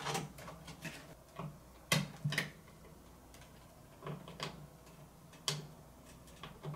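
Irregular light plastic clicks and knocks from a power supply's 24-pin motherboard power cable being worked into its socket on the motherboard. The connector goes in without latching yet.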